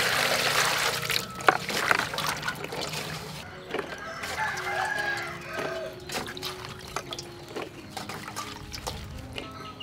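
Water pouring from a jug into an aluminium bowl for about the first second, then hands splashing and swishing small green chilies in the water and dropping them onto a metal plate in a series of light clicks.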